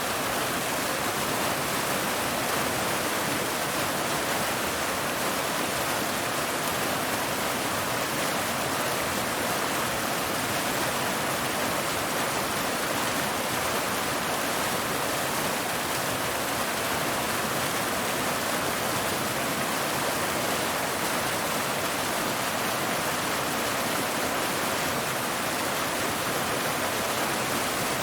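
Waterfall: water cascading over rocks in a steady, even rush.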